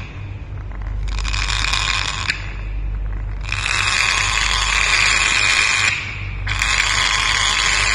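African grey parrot giving three long, harsh rasping calls, each lasting one to two and a half seconds, with short pauses between them.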